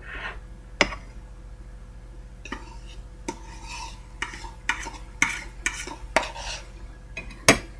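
Metal spoon stirring and scraping in a stainless steel pot as meat is mixed into the rice, with sharp clinks against the pot every half second or so.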